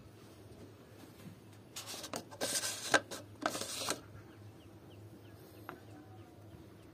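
Plastic jar lid being handled: about two seconds of scraping and rubbing of plastic on plastic, with a sharp click near the middle, over a faint steady hum.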